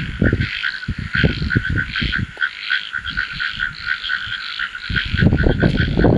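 A chorus of frogs calling in a rapid, continuous stream of short pulsed croaks. Under it a low rumbling noise comes and goes, growing heavier near the end.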